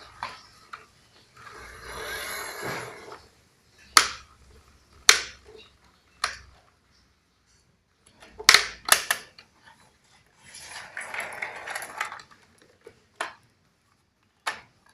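Hard clacks and knocks of a child's toy excavator being handled and banged, with two short stretches of scraping or rattling between them.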